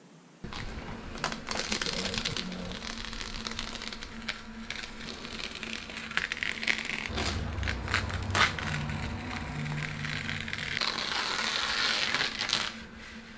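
Masking tape being peeled off paper and the easel board: a long crackling, tearing noise with many small clicks, loudest and densest near the end before it stops.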